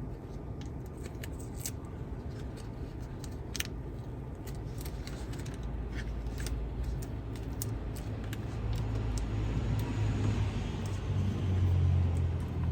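Scattered light clicks and taps, like handling small hard parts, over a low rumble that grows louder in the second half.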